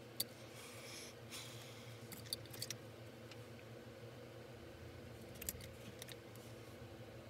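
Quiet room hum with a few light clicks and taps as small makeup items, a compact and a brush or pencil, are handled, and a soft rustle between about one and two seconds in.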